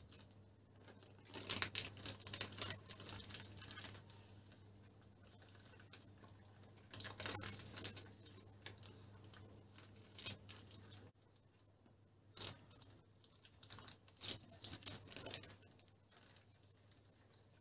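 Plastic food wrap crinkling and rustling in several short spells as hands press and roll minced meat inside it on a wooden board and peel it off.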